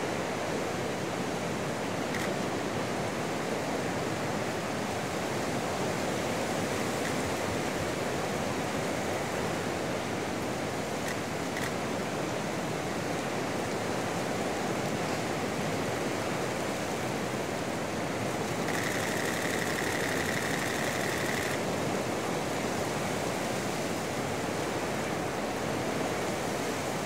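Heavy surf breaking on a rough sea, mixed with wind: a steady rushing noise with no let-up. A faint high steady tone sounds for about three seconds near the end.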